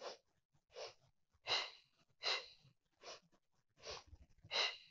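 A person's short, sharp breaths, about seven at an even pace of a little over one a second. This is the Pilates "double breath" pattern, paced to side-lying forward leg kicks.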